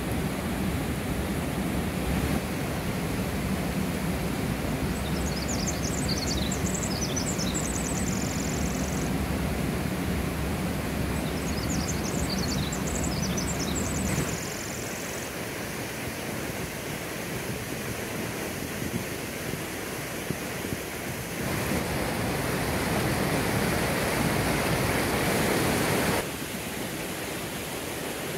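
Steady rush of a fast mountain creek tumbling over rocks. Its tone shifts abruptly about halfway through and twice more later. High, rapid chirping notes come twice in the first half.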